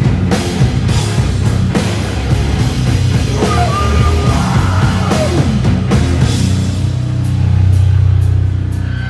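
Live rock band playing loud and heavy: distorted electric guitars and bass over a driving drum kit, with a held low chord swelling near the end.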